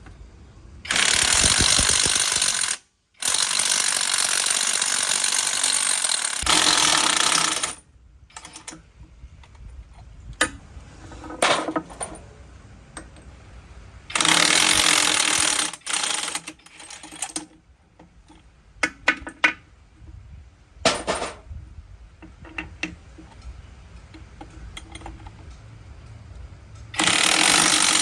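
Air impact wrench running in several hard, rattling bursts of a few seconds each, with clinks and knocks of tools in the pauses between.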